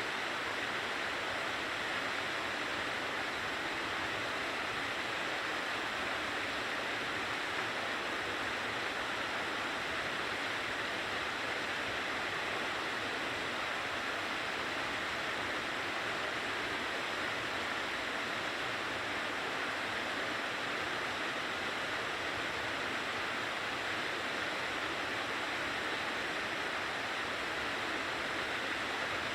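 Mountain stream water rushing steadily over rocks, an even, unbroken rush.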